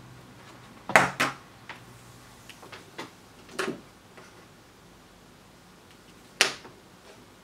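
Sharp metallic clicks and knocks of handling at a workbench: a small circuit board being unclipped from a metal helping-hands clamp and tools being moved. Two loud clicks come close together about a second in, a few lighter taps follow, and one more loud click near the end.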